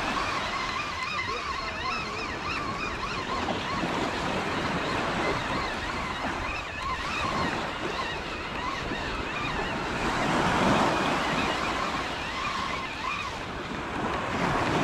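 Ocean surf washing onto the shore, a steady rushing with gentle swells, mixed with wind.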